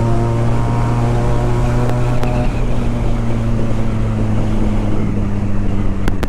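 Benelli TNT 300's parallel-twin engine running at a steady cruise under the rider, its note easing slightly from about halfway, with wind rushing over the microphone.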